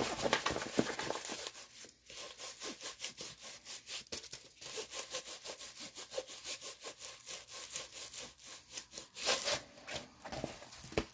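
A rolled diamond-painting canvas with its plastic cover being handled and unrolled, rubbing and scraping against the tabletop in a quick run of short strokes, with the loudest scrape about nine seconds in.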